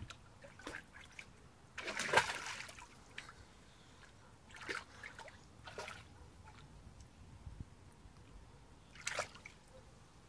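Boxer dog wading in a shallow inflatable pool, splashing the water in short bursts; the biggest splash comes about two seconds in, with smaller ones around five, six and nine seconds.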